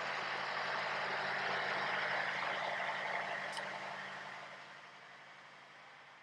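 Oshkosh HEMTT 8x8 truck's diesel engine idling steadily, a low even hum under a hiss. A single sharp click about three and a half seconds in, after which the sound fades quieter over the next couple of seconds.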